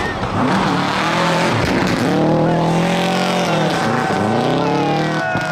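Subaru Impreza WRX STI rally car's turbocharged flat-four engine revving hard while the car slides sideways on snow, its pitch dipping and climbing again several times with throttle lifts and gear changes, over the hiss of spinning tyres on snow.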